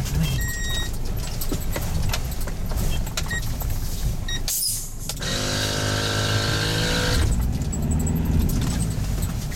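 Hyundai Galloper SUV driving over a snowy off-road track, heard from inside the cab: the engine drone with loose things on the dashboard rattling and clinking. A steady pitched drone stands out for about two seconds just past the middle.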